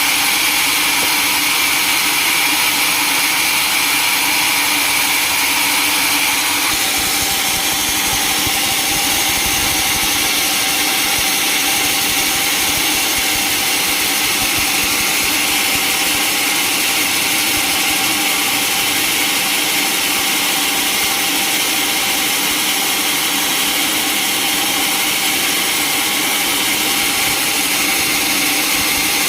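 Sawmill machinery running steadily with a loud, even mechanical noise and a constant hum. The tone shifts slightly about six seconds in.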